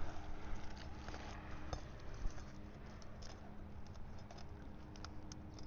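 Scattered light clicks and taps of work on an asphalt-shingle roof, over a low wind rumble on the microphone and a faint steady hum.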